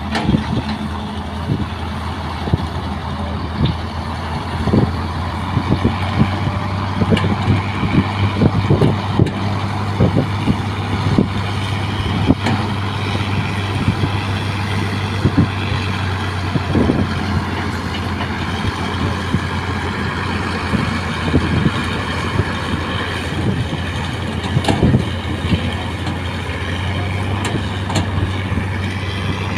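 Excavator's diesel engine running steadily, with frequent short knocks and clanks over it.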